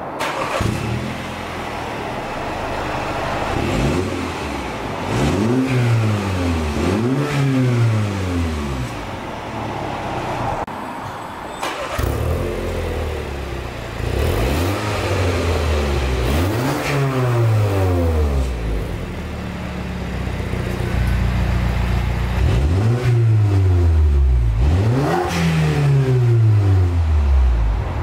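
MINI F56 Cooper S 2.0-litre turbocharged four-cylinder idling at the tailpipes and blipped twice, first through the stock rear muffler. After a cut about twelve seconds in, the same engine idles and is revved in two more pairs of quick blips through a REMUS rear silencer with its exhaust valve closed.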